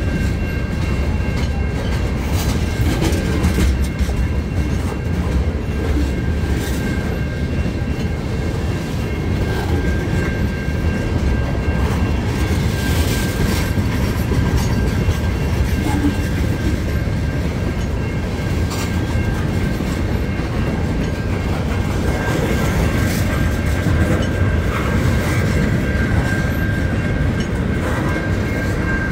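Freight train cars rolling past: a steady rumble of steel wheels on rail with scattered clicks at the rail joints and a thin steady high whine over it.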